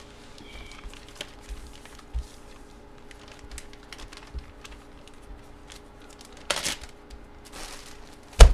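Hands handling trading-card packaging: scattered small clicks, taps and rustles, a short rustle about six and a half seconds in, and a sharp knock near the end.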